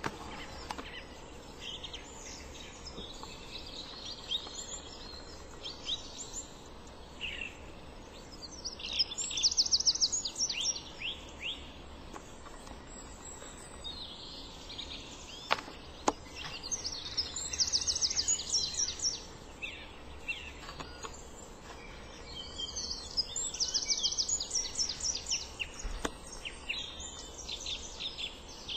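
Small songbirds singing and calling, with several bursts of fast, high trilling song over a steady low background.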